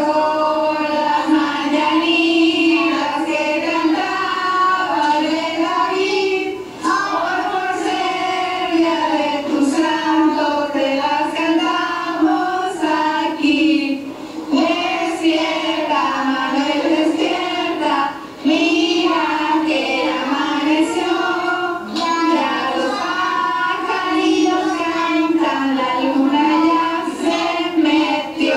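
A group of voices singing a song together, children's voices among them, with held notes and only brief pauses between phrases.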